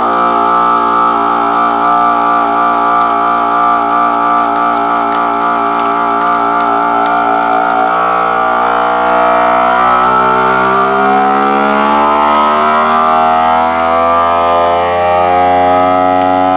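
Vacuum sealer's pump running as it draws the air out of a bag, a steady pulsing hum whose tone shifts from about halfway as the bag pulls tight, then cuts off suddenly once all the air is removed.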